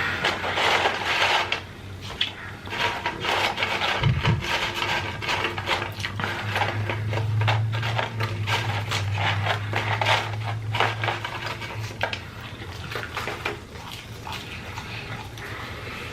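Close-miked mukbang eating and food-handling sounds: many small clicks, crunches and rustles of chewing and handling fast food. A low hum runs underneath from about six to twelve seconds in.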